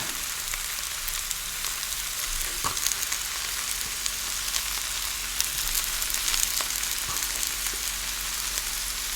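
Steady sizzling hiss with a few faint clicks and pops scattered through it.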